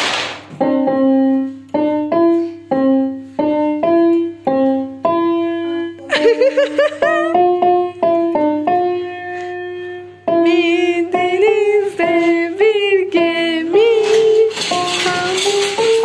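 Portable electronic keyboard played one note at a time, about two notes a second, slowly picking out a simple tune that steps up and down within a few neighbouring notes. In the second half a voice joins in over the notes.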